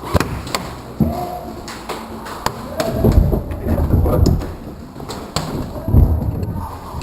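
Airsoft guns firing single sharp cracks now and then, mixed with heavy dull thuds, the loudest about three seconds in and again near six seconds.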